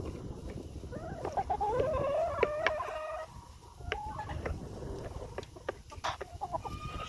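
Chickens calling: one long rising call of about two seconds, then shorter clucks and scattered sharp clicks, with a brief call near the end.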